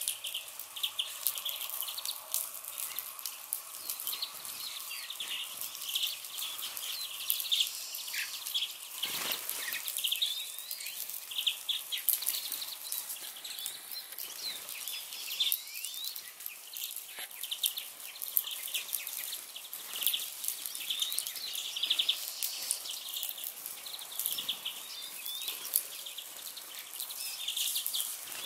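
A flock of small birds chirping and twittering without a break, many short high calls overlapping.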